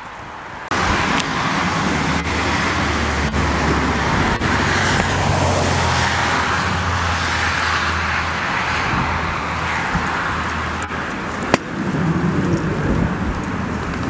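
Jet airliner on low approach, its engines a loud steady rushing noise over a low hum. The sound cuts in abruptly about a second in.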